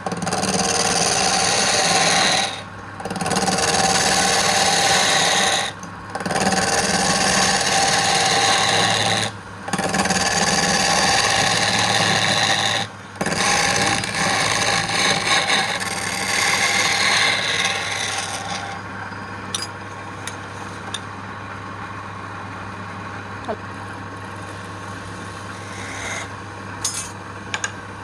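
Wood lathe running with a steady hum while a hand-held tool scrapes against the spinning wood in passes of about three seconds, broken by brief pauses. About two-thirds of the way in the scraping stops and the lathe runs on more quietly, with a few light ticks.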